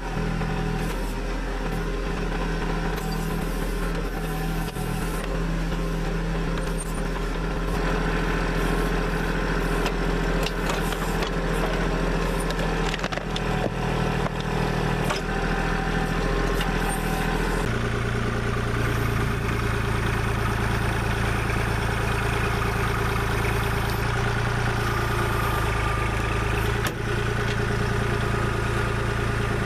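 Diesel engine of a small Kubota tractor-backhoe running steadily under work. Its note shifts to a different steady pitch about eighteen seconds in.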